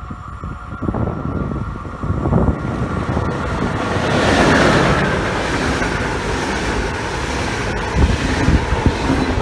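Electric train passing on the line, a rushing noise that builds about two seconds in and peaks near the middle, with wind buffeting the microphone.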